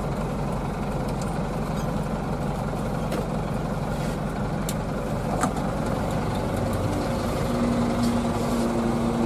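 Diesel minibus engine idling steadily, heard from inside the cab, with a few light clicks. A steady low hum joins about seven and a half seconds in.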